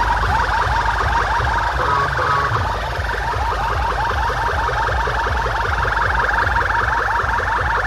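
Very loud DJ track from a street sound system: a siren-like whoop rising quickly in pitch, repeating about three times a second over a pulsing heavy bass.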